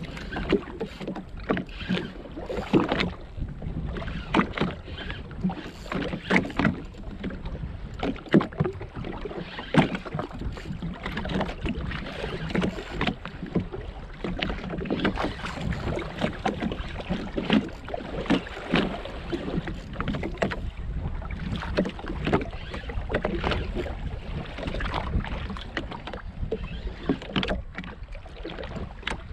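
Choppy sea slapping and sloshing against the hull of a Sea-Doo GTX jet ski in irregular splashes, over a steady low wind rumble on the microphone.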